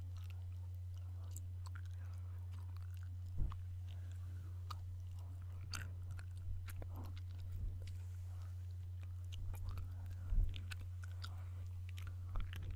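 Chewing gum chewed close to the microphone: irregular wet clicks and smacks, with a few louder low knocks. A steady low hum runs beneath.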